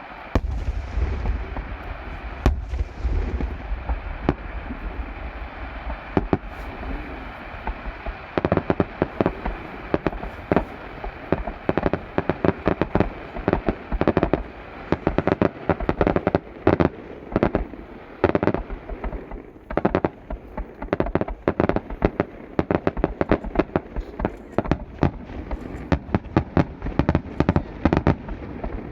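Fireworks display: a deep boom just after the start that rumbles on for a few seconds, then from about eight seconds in a dense, rapid string of bangs and crackles, several a second, that keeps going.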